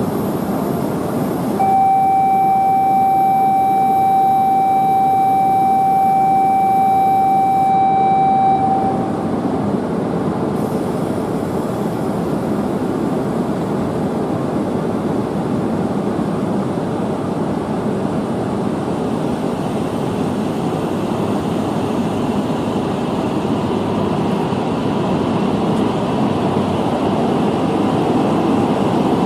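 A steady buzzer tone sounds for about seven seconds, typical of a platform departure signal. After it stops, the coupled E5 and E6 series Shinkansen starts to pull out, and its running noise builds slowly.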